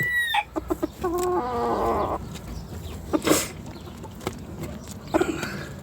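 Chickens clucking and calling, with the tail of a rooster's crow at the very start and a longer call from about one to two seconds in.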